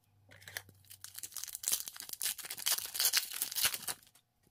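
A hockey trading-card pack's wrapper being torn open by hand, crackling and crinkling in quick bursts until about four seconds in.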